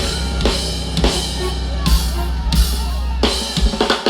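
Live reggae band playing an instrumental stretch: drum kit and deep bass line with a steady beat, no vocals.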